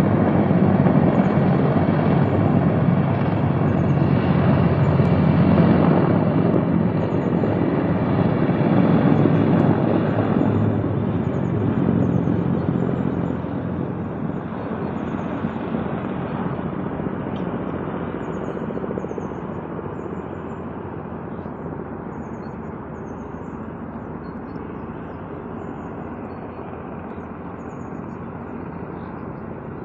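Firefighting helicopter with a slung water bucket flying past, its rotor and engine noise loud at first and growing steadily fainter through the second half.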